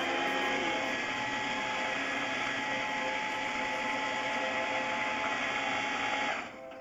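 Flex-shaft drain cleaning machine running at high speed, spinning its cutting head against roots in a concrete sewer line; a steady motor noise that stops suddenly near the end.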